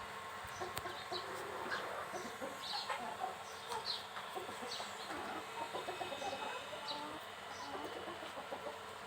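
A flock of free-range chickens clucking, with many short, scattered higher calls among them.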